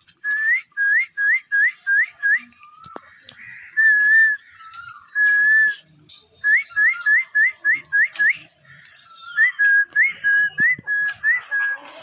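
Pet ring-necked parakeet whistling. It gives quick runs of short notes that hook upward at the end, about three a second, broken by two longer held whistles a few seconds in, then another quick run and a string of notes near the end.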